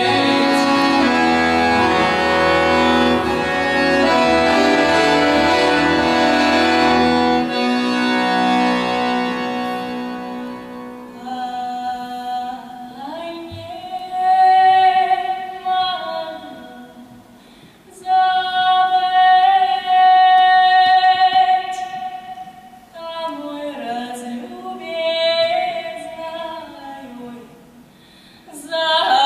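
Female voice singing a Russian folk song with accordion accompaniment. About ten seconds in the accordion drops away and she carries on alone, holding long, sustained high notes with short breaks between phrases.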